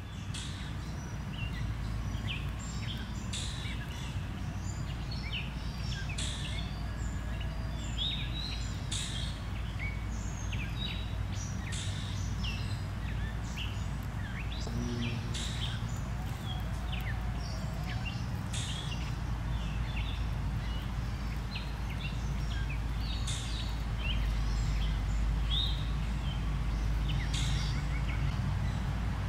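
Birds chirping in short, sharp calls every two or three seconds over a steady low rumble.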